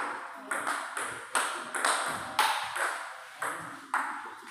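Table tennis rally: the ball clicking alternately off the paddles and the table, about two hits a second, each hit followed by a short echo in the hall.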